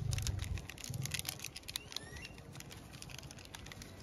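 Light crinkling and irregular ticking of foil seasoning sachets being shaken and tapped out over raw chicken in a plastic basin. A low rumble fades out in the first second.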